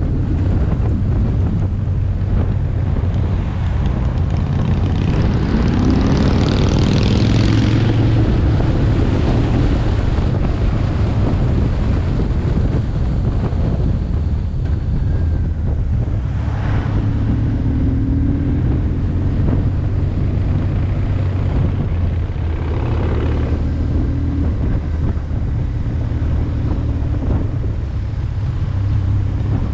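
BMW R1150R's boxer twin engine running under way, heard from a helmet-top camera with wind rushing over the microphone. The wind swells for a few seconds early on, and the engine note rises briefly a few times.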